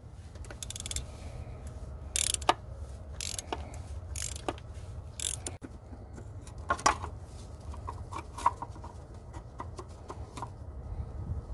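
Ratchet and oil filter socket loosening the plastic oil filter housing cap on a 2.2 Ecotec engine. The ratchet clicks and knocks in short bursts over the first five seconds or so, then come lighter clicks and scrapes as the cap is turned off by hand. A steady low hum runs underneath.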